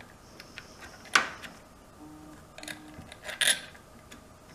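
Small metal pins being handled and pushed by hand into a valve robot's mounting bracket: scattered clicks and knocks, with a sharp click about a second in and a cluster of clicks near the end.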